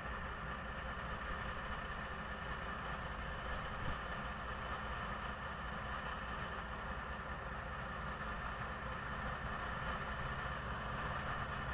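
Diesel locomotive idling steadily, with a few brief high chirps about six seconds in and near the end.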